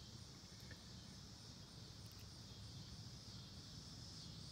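Near silence: faint, steady room tone with a high-pitched hiss and a low hum.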